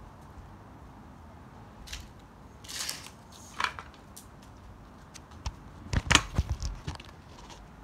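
Scattered knocks, scrapes and crackles from footsteps and the phone being handled close to its microphone, loudest in a cluster about six seconds in.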